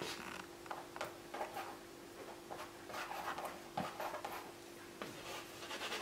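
Palette knife scraping and spreading oil paint across a canvas in short, irregular strokes, faint.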